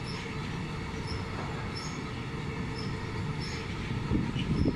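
Container freight train wagons rolling past, a steady rumble of wheels on the rails that grows louder near the end.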